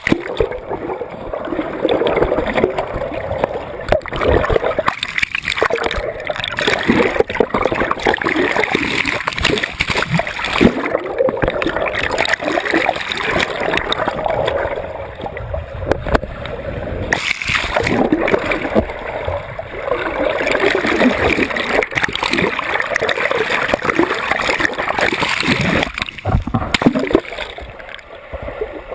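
Water churning and splashing continuously, easing off a little near the end.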